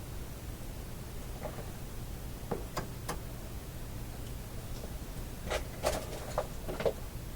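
Scattered clicks and light knocks from handling test leads and equipment on a workbench, in small groups, over a steady low hum.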